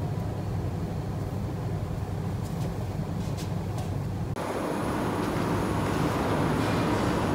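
Steady low mechanical hum of an indoor room, with a few faint clicks. About four seconds in it cuts off abruptly to a louder, even rushing noise.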